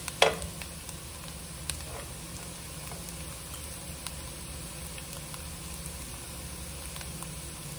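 Chopped onions frying gently in olive oil in a pan: a low, steady sizzle with a few faint crackles, and a sharp click just after the start.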